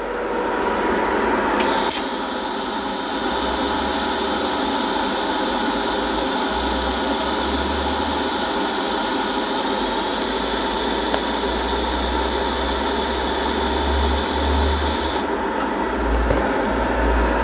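TIG welding arc running a bead: a steady hiss that strikes about a second and a half in and cuts off sharply near the end. A low hum runs underneath.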